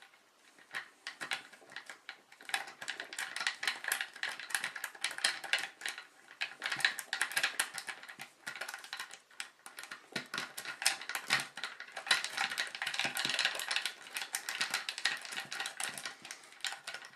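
A paperclip rake worked in and out of a pin-tumbler lock's keyway under light tension, making a rapid, uneven run of fine metallic clicks and scraping as it rattles across the pins, starting about a second in.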